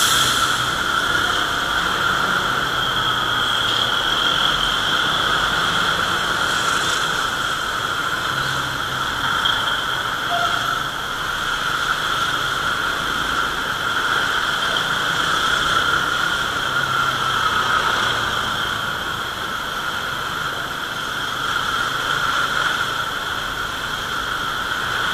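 Motorcycle riding slowly through heavy traffic: a steady rush of wind and road noise with a high, steady whine over it, and the engine running low underneath.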